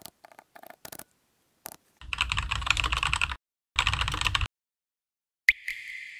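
Mechanical keyboard keys being pressed: a few separate clicks, then two bursts of rapid typing about two and four seconds in. Near the end, a sharp hit followed by a short ringing tone.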